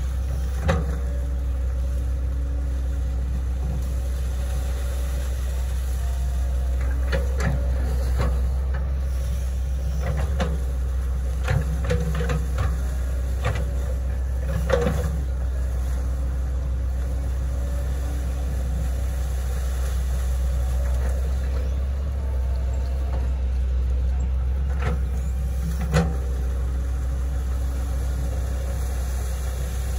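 Hitachi Zaxis 110 excavator's diesel engine running steadily under digging load, a constant low drone. A few sharp knocks and clanks from the bucket and boom are scattered through it, the loudest about midway and again near the end.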